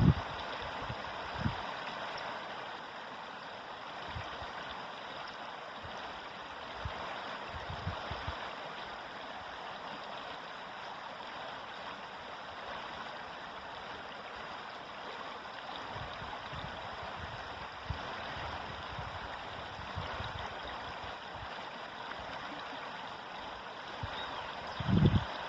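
River water flowing steadily with an even rushing hiss, broken by occasional short low bumps, the strongest near the end.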